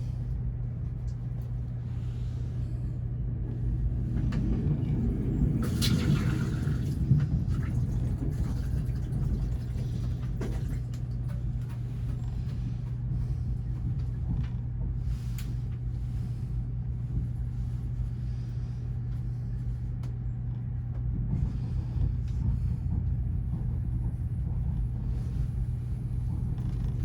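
Steady rumble of a passenger train rolling along the track, heard inside a sleeper cabin, with a constant low hum underneath. The rumble swells for a few seconds around five seconds in, with a single sharp knock near seven seconds.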